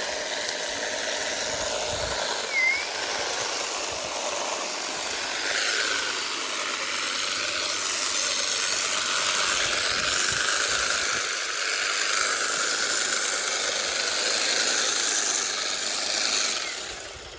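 Ego battery-powered multi-tool hedge trimmer running steadily with its blades cutting hedge, then winding down and stopping near the end.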